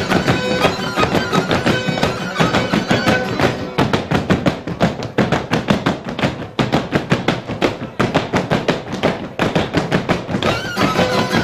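Fiddle and guitar playing fast traditional folk dance music. From about four seconds in to near the end, a dense, even beat of sharp strokes drives the tune.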